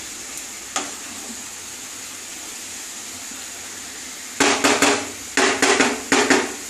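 Grated bottle gourd and prawns sizzling steadily in a kadai over a high flame. About four and a half seconds in comes a quick run of sharp knocks, the wooden spatula being tapped against the pan.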